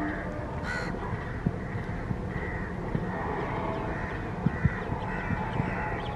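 Crows cawing repeatedly, one harsh caw about a second in and shorter caws after it, over a low steady rumble, with a couple of sharp clicks about four and a half seconds in.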